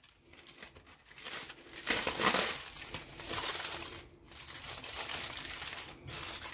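Aluminium foil crinkling in several bursts as a foil baking parcel is pulled open and folded back, the strongest about two seconds in.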